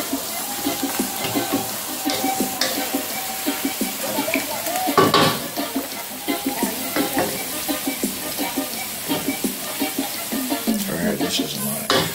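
Curry chicken sizzling in a stainless steel pan while a wooden spatula stirs and scrapes it, with a louder knock of the spatula against the pan about five seconds in.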